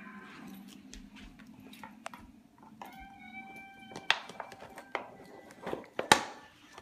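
A dog chewing an aluminium soda can: a string of sharp crunches and crinkles of the thin metal, the loudest about six seconds in.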